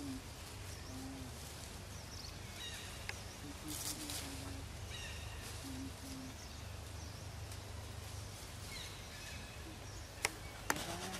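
Outdoor ambience: a steady low rumble with scattered faint bird chirps, a short rustle about four seconds in and a few sharp clicks near the end.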